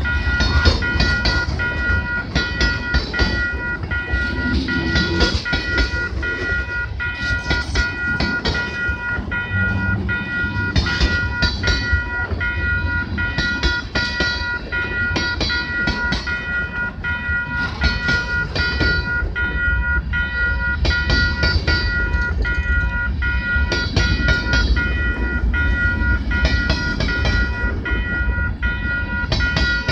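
Freight cars rolling past at a level crossing: continuous rumble with the repeated clack of wheels over rail joints, and a steady high ringing tone held over it throughout.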